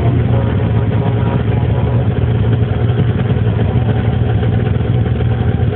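Snowmobile engine running steadily at an even speed, with no revving.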